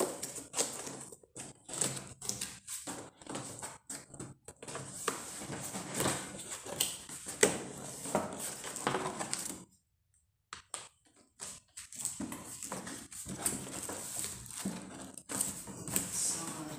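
Cardboard box being opened and handled: flaps pulled open, the box tipped and turned, with scraping and rustling of cardboard and packaging and irregular knocks. There is a pause of about two seconds partway through.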